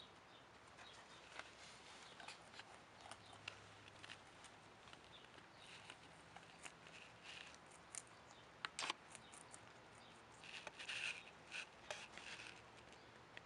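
Guinea pig chewing a piece of carrot: faint, irregular crunching clicks, busiest around the middle and in the last few seconds.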